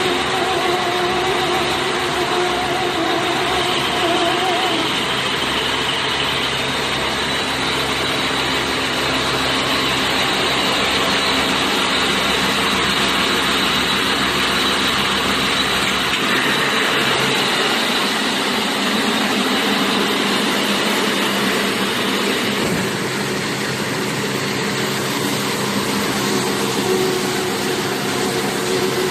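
70-type forage baler running on a test: a steady mechanical drone with humming tones, its sound shifting slightly about three-quarters of the way through.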